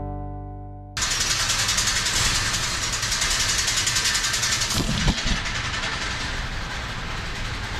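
Fading music for about a second, then a machine cuts in suddenly and runs with a fast, steady rattle. A couple of low thuds come about halfway through.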